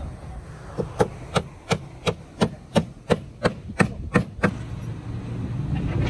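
Hammer striking nails into timber formwork boards: about a dozen evenly paced blows, roughly three a second, stopping about four and a half seconds in.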